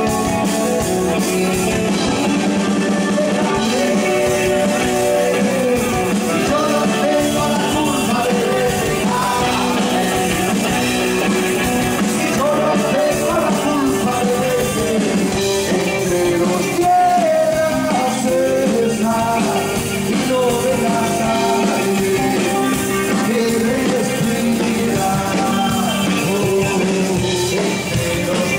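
Live rock band playing a song: electric guitar, bass guitar and drums, with male voices singing over them.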